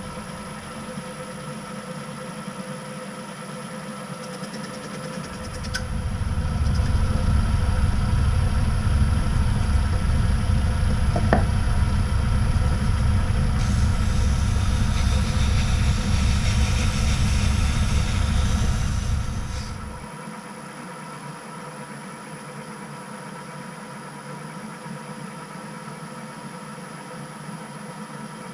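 Metal lathe running with a steady whine. About five seconds in, a heavy low rumble comes in and holds until about twenty seconds in, with a hiss added during its last few seconds, then it drops back to the steady running sound.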